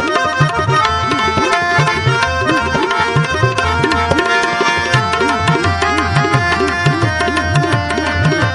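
Tabla playing a steady rhythm in an instrumental interlude of Sikh kirtan, the bass drum's pitch bending up and down, over held harmonium notes.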